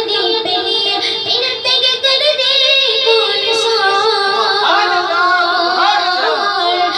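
A boy singing solo into a microphone, a wavering, ornamented melody of long held notes with pitch slides.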